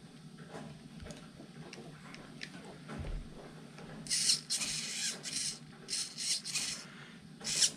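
Small electric steering servo in an RC rock crawler whirring in a run of short bursts as the steering is worked back and forth, after a few faint handling clicks. The test fit shows the servo horn's ball joint still rubbing on the steering bar.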